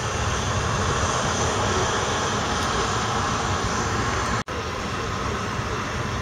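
Steady jet noise from the four engines of a Boeing 747-400 on final approach. The sound cuts out for an instant about four seconds in.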